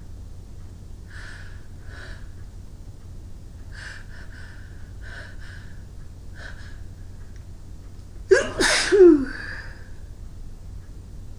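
A woman sneezing once, about eight seconds in: a short gasp falling in pitch, then the loud sneeze. Several short faint breaths come before it.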